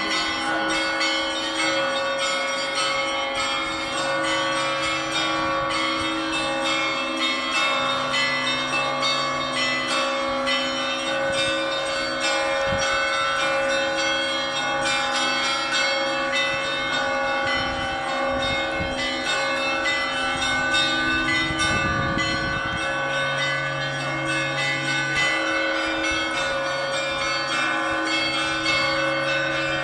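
Russian Orthodox church bells ringing: many bells struck together in a dense, continuous peal, their tones overlapping and ringing on.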